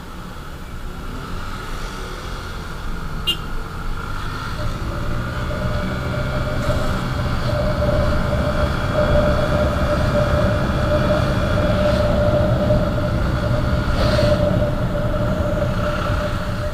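Motorcycle running on the road at a steady speed, with engine and road noise. A steady whine comes in about four seconds in, and the sound grows gradually louder.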